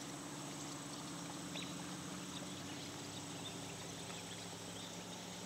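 Faint, steady outdoor ambience with a low, even hum and no clear events.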